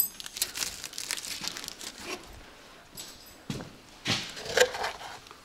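Wrapper of a novelty chocolate crinkling and tearing as it is handled and unwrapped, with scattered rustles and a few louder crackles in the second half.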